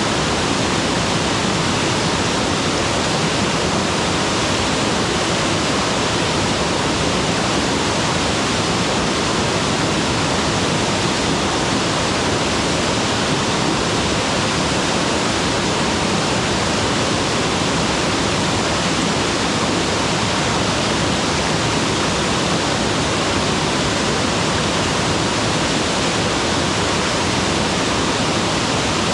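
Mountain waterfall: water pouring and splashing in a steady, unbroken rush.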